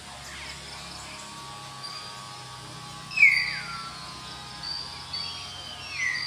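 Wild bird calls: a loud, short down-slurred call about three seconds in, followed by thin high whistled notes and another falling call near the end.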